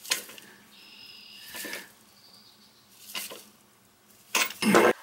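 Metal deep socket on a nut driver scraping and clinking against a nut as it is turned down a toilet's closet bolt, in a few short irregular bursts with a brief thin squeak about a second in and a louder clatter near the end.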